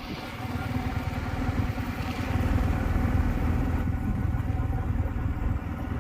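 Motorcycle engine running steadily, with a fast pulsing low rumble under a hiss.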